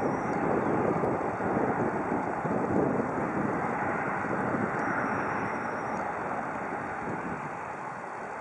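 Jet engine noise from a Lufthansa Boeing 737 rolling out on the runway after landing: a steady rush that is loudest in the first few seconds, then slowly dies away as the aircraft slows.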